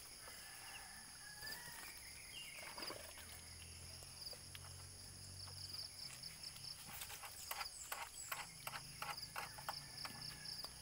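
Quiet rural outdoor ambience with a steady high insect drone. Near the end comes a quick run of light knocks and clacks as washing gear, a plastic water dipper and basin, is handled.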